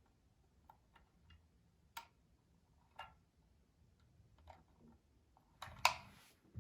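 Scattered faint clicks and taps from tools and small parts being handled, roughly one every second, then a louder clatter near the end.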